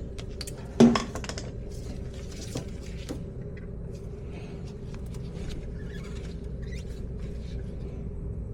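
Clicks and small metallic knocks of hand tools at work on a pump's wiring, with one sharp snap about a second in, over a steady low hum.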